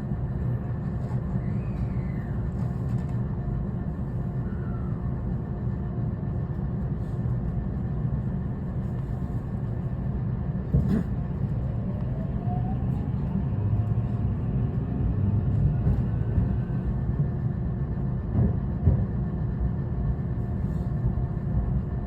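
223 series electric train with a steady low rumble. About halfway in, a traction-motor whine rises in pitch as the train moves off slowly. There are two short clunks, one about halfway and one near the end.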